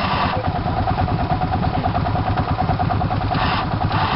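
Suzuki 400 dual-sport motorcycle's single-cylinder four-stroke engine idling with a fast, even beat while the bike sits half-submerged in muddy water.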